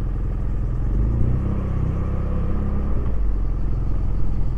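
BMW F800GS motorcycle's parallel-twin engine running through an aftermarket sport exhaust, a steady rumble whose pitch shifts a little as the bike rides along.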